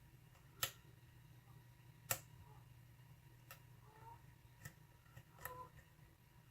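A thin steel lock pick clicking faintly against the pins inside a Corbin pin-tumbler lock cylinder as it probes them under light tension. There are a handful of sparse, sharp clicks, the loudest two near the start and about two seconds in.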